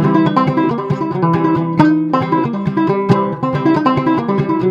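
Homemade five-string fretless gourd banjo with a curly maple neck, played solo in a fast, even run of plucked notes.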